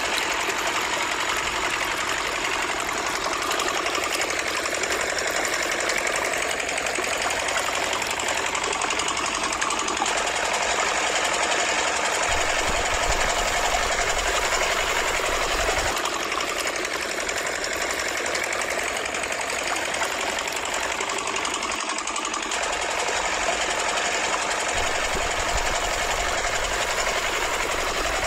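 A small motor running steadily, driving the mini water pump, while its water pours and splashes onto the toy tractors.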